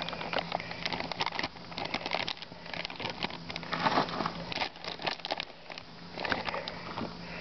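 Crinkling and rustling from hands sorting through the hawks' food in its container, with many small irregular clicks and knocks and a louder burst of rustling about four seconds in, over a faint steady low hum.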